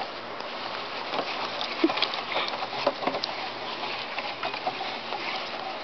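Dog tugging and worrying a plush toy horse on grass: rustling and scuffling, with scattered small clicks.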